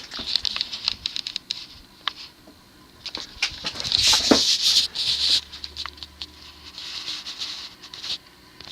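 Universal (TAT) spinner ceiling fan running on low speed. Its motor bearings make a loud, noisy, hissing chatter with scattered clicks, swelling and fading in waves, the sign of worn, noisy bearings.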